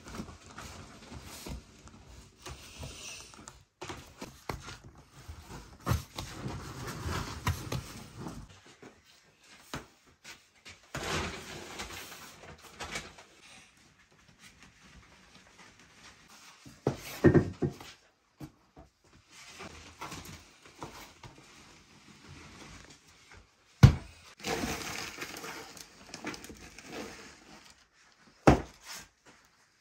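Hands working bread dough on a wooden worktable: rubbing and rolling, broken by several sharp knocks, the loudest a little past halfway and another near the end.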